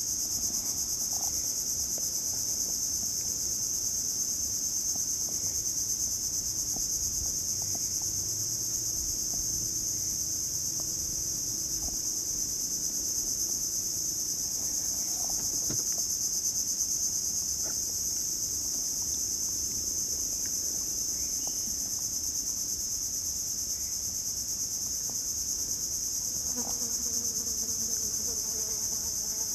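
A steady, high-pitched chorus of insects that runs without a break, with faint small splashes of a hand and a fish moving in the water at the side of the boat.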